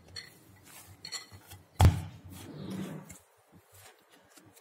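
Hands kneading wheat-flour dough in a glass bowl: soft rubbing and pressing with small clicks, and one sharp knock about two seconds in. The sound falls away after about three seconds.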